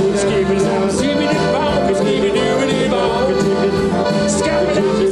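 Live band music led by two piano accordions playing together, over a steady beat with regular cymbal strokes.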